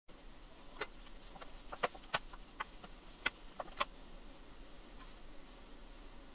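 Light taps and clicks of food being set down and handled on a wooden cutting board, about eight in the first four seconds and sparser after, over a faint steady background hiss.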